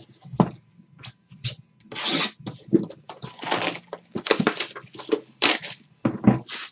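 Plastic shrink wrap crinkling and tearing as it is pulled off a cardboard trading-card box by hand, in a run of irregular rustling bursts.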